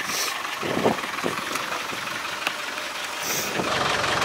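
Land Rover Defender engine running at low revs as the truck crawls over a wet rocky track, with scattered knocks from stones under the tyres. The engine grows louder near the end.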